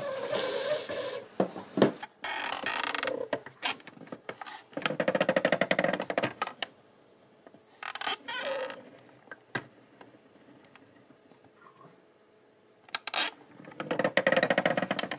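Foot-pedal-driven syringe mechanism of a parts-cleaning station squeaking in repeated strokes, while jets of acetone spray from the needles. There are about six separate strokes, with a quiet stretch of a few seconds in the middle.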